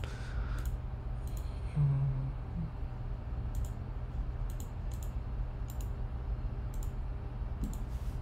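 About eight scattered single clicks of a computer mouse and keyboard, over a steady low electrical hum. A brief low hum sounds about two seconds in.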